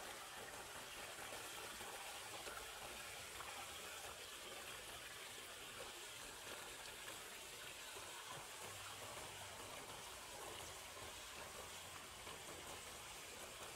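Faint, steady rushing of water with no separate splashes or knocks.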